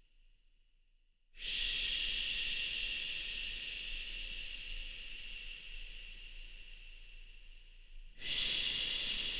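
A person shushing, 'shhh', to soothe a baby to sleep: one long shush that starts about a second and a half in and slowly fades over some seven seconds, then a second one begins near the end.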